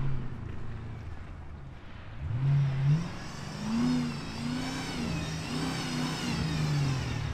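Off-road race vehicle's engine revving hard under load in the mud, its pitch rising about two seconds in, then swinging up and down repeatedly as the throttle is worked.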